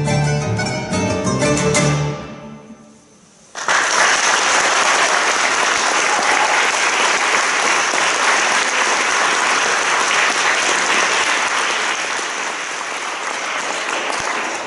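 A mandolin, classical guitar and double bass trio plays the closing notes of a piece, ending on a chord about two seconds in. After a short pause, audience applause breaks out suddenly and goes on steadily, easing a little near the end.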